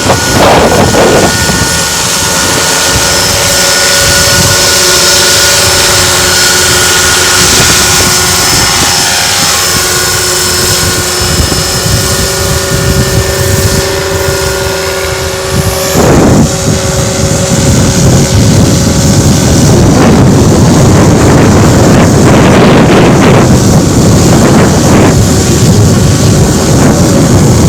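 RC scale helicopter running steadily, heard as a steady machine whine of several tones, which at one point slides down in pitch. Heavy wind buffets the microphone throughout and swamps the whine in the second half.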